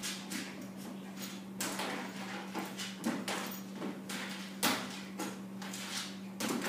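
Irregular knocks, taps and scrabbles of a small dog's paws against a plastic pet carrier and tile floor as it jumps and paws at a cat, over a steady low hum.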